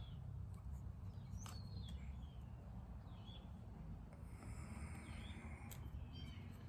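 Outdoor background of steady low rumble with scattered short bird chirps and a few faint clicks.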